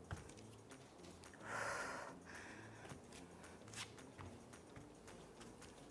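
A woman breathing hard through slow burpees, with one loud, hissing exhale about a second and a half in. A short knock at the very start, and a few light clicks.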